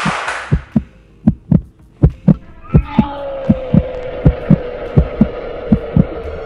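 Heartbeat sound effect: evenly paired low thumps, a little faster than one beat-pair a second. It opens as a whoosh dies away, and about three seconds in a steady droning tone joins the beats and drifts slightly lower.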